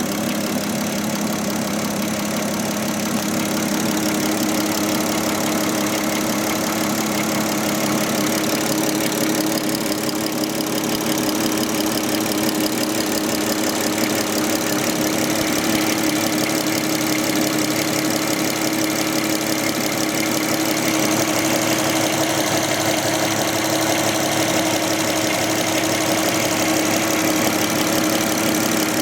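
Volkswagen Touareg engine idling steadily, an unbroken hum with a constant pitch and no change in speed.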